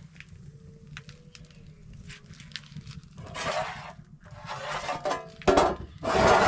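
Metal pot lid lifted off an aluminium cooking pot of boiling beans on a wood-fired stove. There is a rustle of handling about three and a half seconds in, a sharp metallic clank about five and a half seconds in, and a second loud clatter near the end as the lid is set down. Before that, faint crackles come from the wood fire under the pot.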